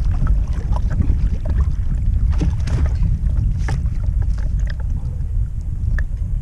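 Strong wind rumbling on the microphone, with scattered splashes and water slapping at a small boat's side as a hooked black bass thrashes at the surface.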